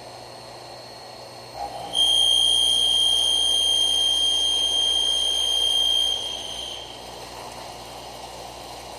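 A steady high-pitched tone from a CNC machine tool comes in suddenly about two seconds in and holds for about four seconds before fading, over steady machine noise. It may be the cutting whine or a buzzer signal.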